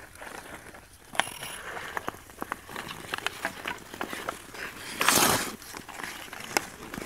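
Hockey sticks and a puck clacking and tapping on pond ice, with a sharp crack about a second in. Skate blades scrape the ice, with one loud half-second scrape about five seconds in.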